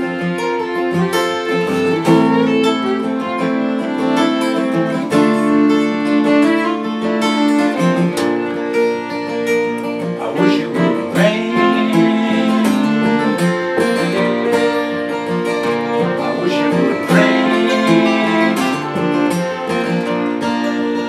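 Two acoustic guitars strumming and a fiddle playing together in an instrumental break, with no singing. The fiddle slides in pitch a few times in the second half.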